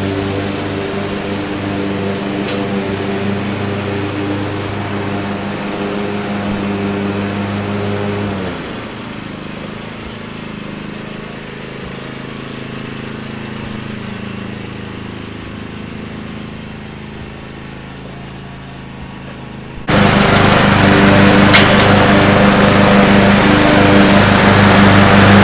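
Troy-Bilt riding lawn mower's engine running steadily as it mows. It drops off and fades about a third of the way in, then suddenly comes back much louder and close near the end.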